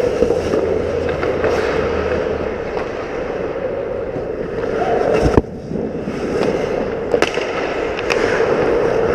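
Ice hockey play heard from inside the goal net: skates scraping and cutting on the ice and sticks clattering, with one sharp, loud knock about five seconds in and a few lighter clicks near the end.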